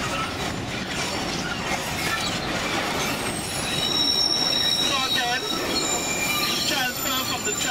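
Narrow-gauge sugar-cane railway train running with a steady rumble. About halfway through, its wheels start a high, steady squeal against the rails as the train rounds a curve.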